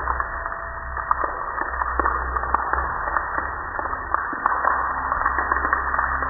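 Water streaming and dripping down from a leak above a raised garage door: a steady splashing hiss with many sharp drip splats scattered through it, over a low rumble.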